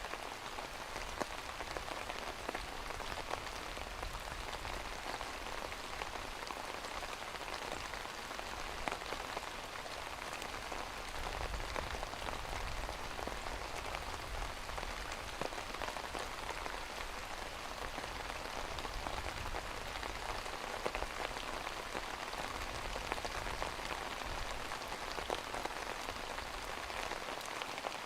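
Steady rain falling on a surface, an even hiss thick with the ticks of single drops.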